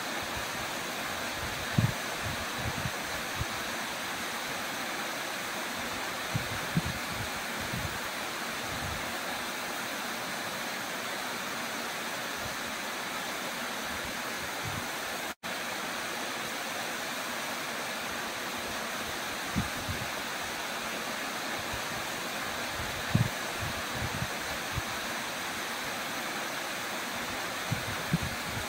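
Waterfall pouring down a rock face into a plunge pool: a steady, even rush of falling water. A few short low thumps sit under it, and the sound cuts out for an instant about halfway.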